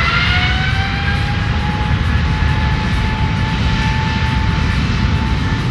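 Twin jet engines of an ANA Boeing 777-200 on the runway: a whine that rises in pitch over about the first second and then holds steady, over a loud, continuous low rumble.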